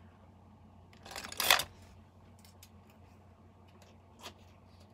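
Small cosmetic packaging handled: a short rustle-and-clatter about a second in, then a few light clicks.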